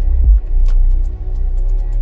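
Background music with a heavy, steady bass line and light percussive ticks.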